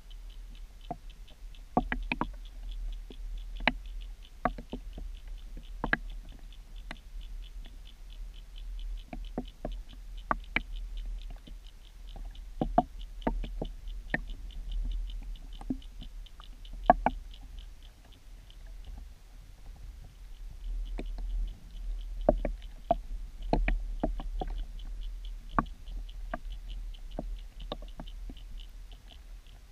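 Underwater sound picked up by an action camera in its waterproof housing: a steady low rumble of moving water with irregular sharp clicks and knocks, and a fast, faint ticking that runs through most of it.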